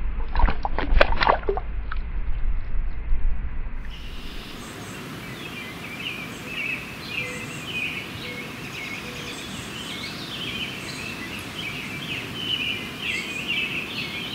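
Water splashing as a small sunfish is let go by hand in shallow river water, with a low rumble on the microphone. About four seconds in this gives way to outdoor birdsong, many quick high chirping notes.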